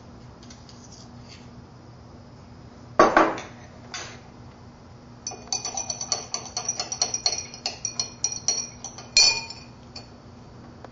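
Glass stirring rod clinking against the inside of a glass beaker while sodium carbonate is stirred into water: a quick run of ringing clinks, about five a second, for some four seconds, ending with a louder clink. A single louder knock comes about three seconds in.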